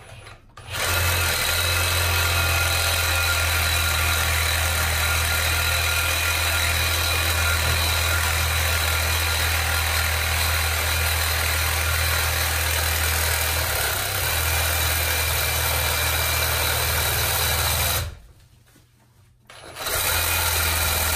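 Ridgid reciprocating saw (Sawzall) running at full speed, its blade cutting through cast iron sewer pipe. The saw runs steadily and loud, stops for a couple of seconds near the end, then starts cutting again.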